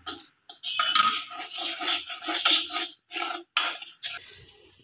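Steel spoon stirring and scraping against a stainless steel pan in quick repeated strokes, with a couple of short pauses. It is mixing flour with freshly poured hot water into dough.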